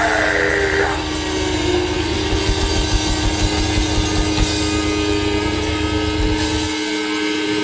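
Distorted electric guitar and bass held as a sustained droning chord with feedback ringing over it. A higher tone slides down in the first couple of seconds, and the low bass rumble cuts out near the end.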